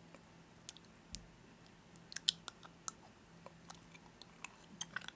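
A run of irregular, sharp clicks and crunches that grows busier after about two seconds, over a faint steady hum.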